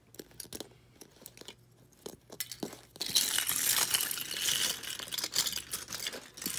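LEGO pieces being handled and sorted by hand: scattered small plastic clicks, then from about three seconds in some three seconds of dense rattling and rustling.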